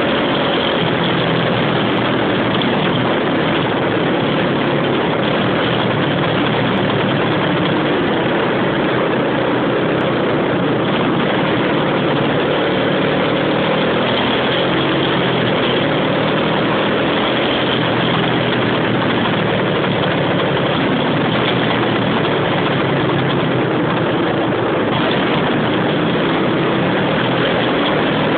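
A vehicle's engine running steadily while driving along a street, mixed with a dense, even rush of wind and road noise on the microphone.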